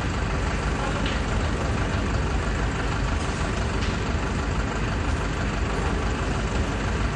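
A heavy vehicle's engine idling steadily under constant street noise.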